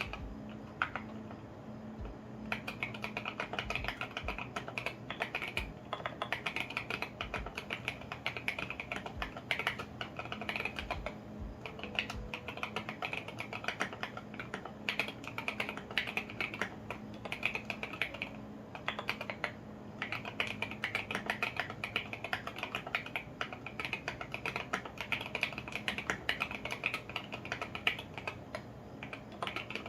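Custom KBDfans Tofu65 acrylic mechanical keyboard with lubed and filmed Alpaca V2 linear switches and SA ABS keycaps, typed on in a fast, steady stream of keystrokes, with a few short pauses.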